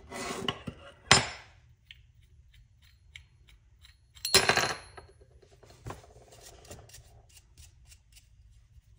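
Metal parts of a small hand plane being taken apart and set down on a workbench: a brief scrape, a sharp clack about a second in, scattered light clicks, and a louder metallic clatter with a short ring about four and a half seconds in.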